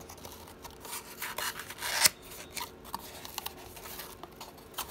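Small corrugated cardboard box being folded by hand: cardboard rubbing and scraping as the flaps are creased and tucked in, with one sharp snap about two seconds in.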